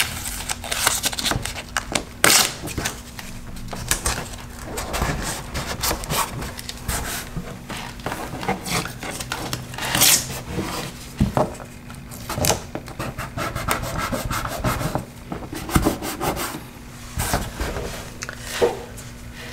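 Hands rubbing and pressing an adhesive-backed plastic trim garnish down onto a car's plastic lower door cladding: irregular scuffing and rubbing with a few sharper handling knocks.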